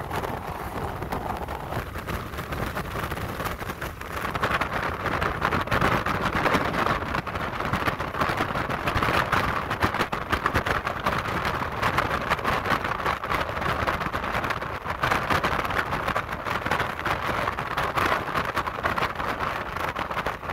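Steady road and wind noise of a car driving along a highway, heard from inside the moving car; it grows louder about four seconds in.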